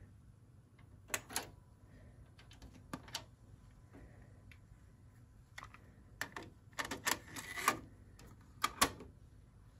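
Plastic clicks and rattles from a Pioneer CT-3070R cassette deck being loaded: the cassette door opens, a tape cassette is slid into the door's holder with a cluster of clattering, and a last pair of sharp clicks comes near the end as the door is pushed shut.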